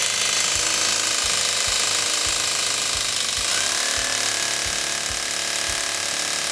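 Hammer drill boring a 1/4-inch masonry bit into stone brick, running steadily and loudly without a break.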